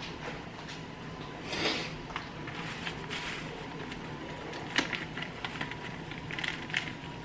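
Plastic packaging of raw chicken thighs rustling and crinkling in short bursts as it is handled, with one sharp click about five seconds in.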